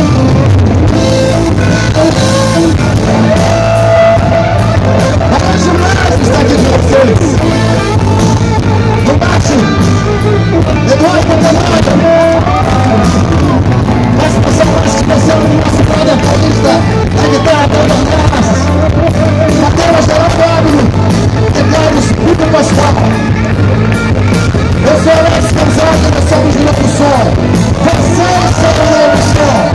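Live band playing loudly, heard through a phone's microphone: electric guitars, electric bass and drum kit, with a wavering melody line over a heavy, steady low end.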